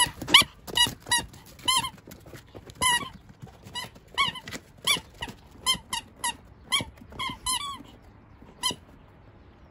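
A squeaky toy ball squeaking again and again as a Pomeranian bites and paws at it. The short squeaks come irregularly, about two a second, and stop near the end.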